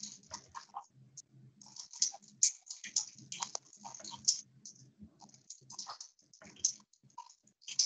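Irregular tapping and clicking of a computer keyboard and mouse, dozens of short clicks at an uneven pace.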